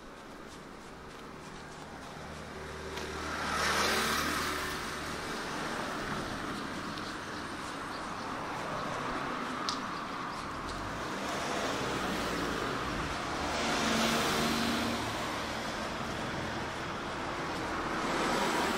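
Cars passing on a street, one at a time. A swell of engine and tyre noise comes about four seconds in, another about fourteen seconds in, and a third near the end, with lower traffic noise between.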